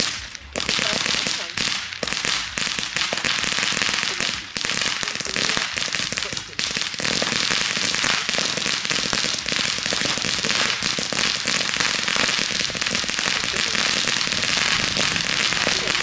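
Blackboxx Mega Vulkan-Feuersäule crackling fountain burning: a dense, rapid stream of small crackling pops. It comes in spurts with short lulls over the first several seconds, then runs unbroken.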